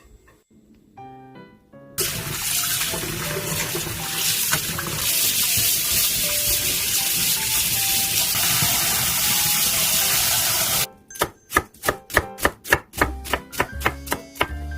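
Tap water running hard into a sink for about nine seconds, stopping suddenly, followed by a knife chopping on a cutting board at about four strokes a second.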